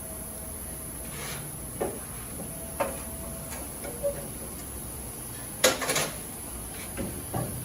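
A few scattered knocks and clanks, the loudest cluster a little over halfway through, over a steady hiss.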